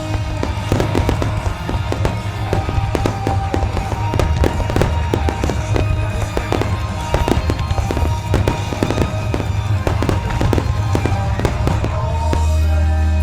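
Fireworks shells bursting in a dense run of sharp bangs and crackles, over music with a heavy bass.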